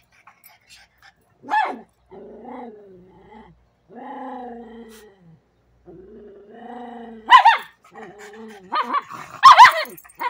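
Small dogs vocalising: a short yip about a second and a half in, then several long grumbling growls, then loud sharp barks in the last three seconds.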